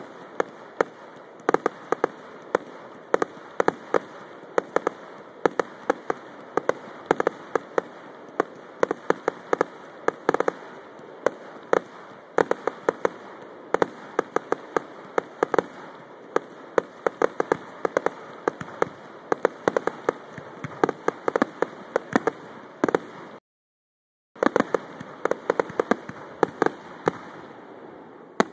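Fireworks display: a dense run of sharp bangs and crackles from aerial shells and rockets bursting, several a second. The sound cuts out completely for about a second near the end.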